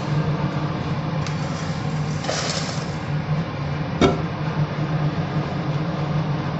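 Roasted dry red chillies tipped from a nonstick kadai into a steel bowl: a brief rustle about two seconds in, then a sharp clink of the spatula against the steel bowl about four seconds in, over a steady low hum.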